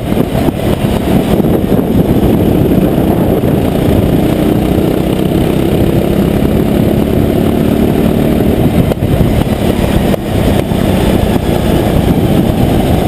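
Go-kart engine running at speed, heard from the driver's seat with heavy wind rush on the microphone.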